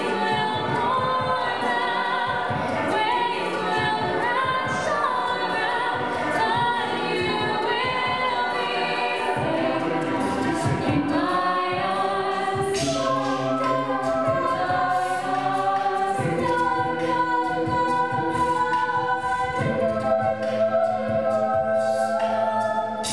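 Live a cappella mixed-voice group singing: a female lead over held chords from the rest of the group.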